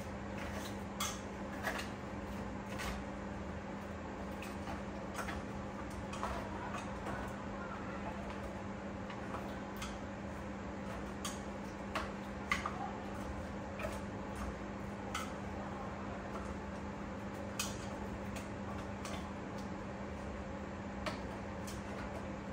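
Chopsticks clicking and tapping against a stainless steel pot as pieces of snakehead fish are mixed with seasoning to marinate, in scattered light taps with a few sharper knocks. A steady low hum runs underneath.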